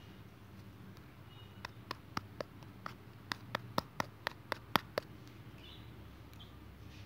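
A run of about a dozen sharp clicks, roughly four a second, starting about a second and a half in and stopping about five seconds in, over a low steady hum.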